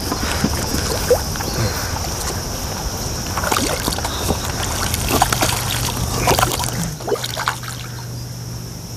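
A small grass carp splashing at the water's surface as it is played on the rod and brought to the landing net. Scattered short splashes come through, most of them between about three and a half and seven and a half seconds in.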